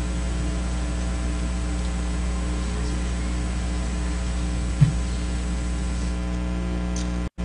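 Steady electrical mains hum through the church's sound system, with one short thump about five seconds in. The audio drops out for an instant near the end.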